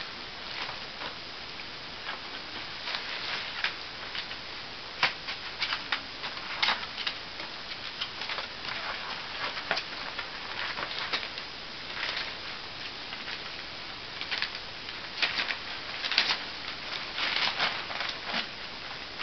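Crumpled wrapping paper crinkling and rustling in irregular bursts as a ferret and a cat move and play through it.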